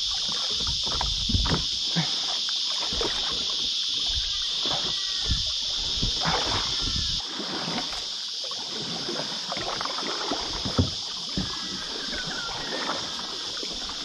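Kayak paddle strokes dipping and splashing in creek water, with irregular knocks and sloshes, over a steady high-pitched drone of cicadas.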